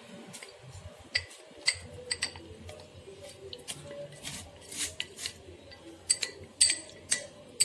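Metal spoon stirring arrowroot and water in a glass bowl, clinking against the glass in a run of irregular, ringing clinks as the lumps are dissolved.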